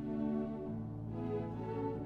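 Orchestral background music: slow, held string notes over a sustained bass line.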